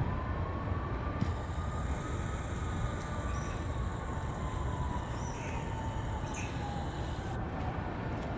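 A siren wailing slowly, its pitch rising and then falling over several seconds, above a steady low rumble.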